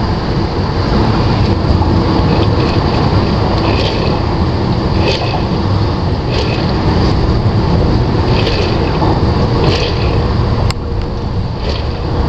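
1996 Jeep Grand Cherokee ZJ drivetrain running, heard from beneath at the transfer case: a loud, steady rumble with a hissy scraping that comes back unevenly about every second or second and a half, and one sharp click near the end. This is the grinding the owner is chasing; he hears it at the transfer case, whose yoke moves a little free, and thinks it sounds like the chain moving around.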